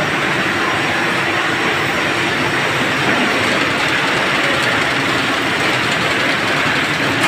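Orange grading machine running: its roller conveyors carry and turn oranges along the lanes, making a steady, loud mechanical noise.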